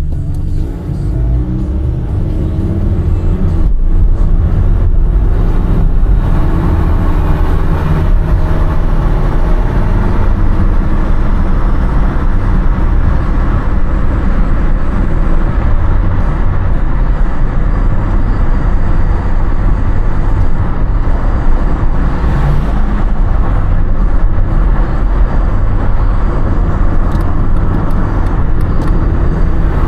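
Car driving on a road, with a steady rumble of road and engine noise.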